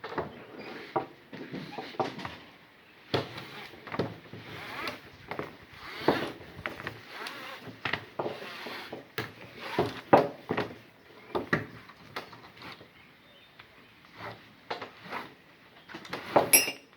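Ratchet strap being worked loose by hand: irregular metallic clicks and knocks from the ratchet mechanism, with webbing scraping and rubbing as it is pulled off the drum. The strap is jammed because it was ratcheted without the slack taken out first.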